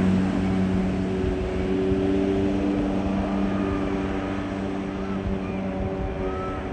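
Jet boat's Yamaha 650 two-stroke engine running steadily, slowly fading as it draws away.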